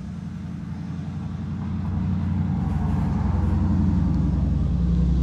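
A low, pulsing engine drone that grows steadily louder over the first few seconds and then holds.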